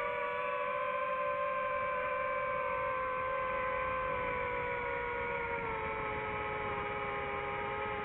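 DJI FPV drone's motors and propellers whining steadily, several tones together, their pitch easing slowly downward as the throttle eases.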